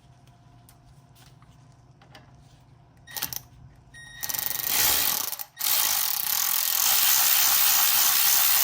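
Electric ratchet with a size 6 hex socket running as it spins out the pad-retaining hardware on a big brake kit caliper: a short run about four seconds in, a brief stop, then a longer steady run.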